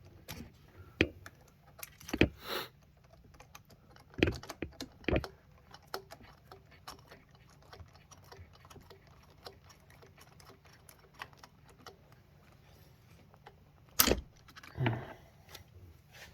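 Metal clicks and clinks of a square bit and tool on the bolts while the high pressure fuel pump's mounting bolts are tightened by hand a little at a time, with many faint ticks between a few sharper clinks.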